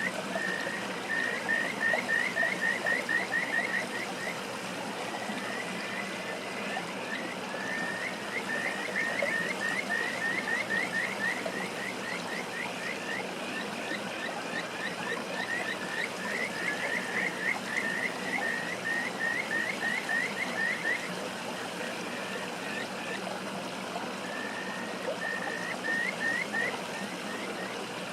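Male kajika frogs (Buergeria buergeri) calling over a rushing stream: trains of short, rising whistled notes, about five a second, broken by pauses, with an occasional longer rising note. The short 'fi-fi-fi' calls are one male countering a rival's long 'fiii' call in competition for females.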